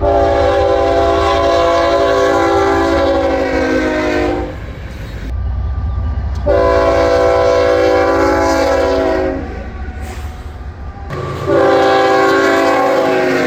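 Locomotive air horn sounding three long blasts, each a chord of several tones held steady, over a continuous low rumble.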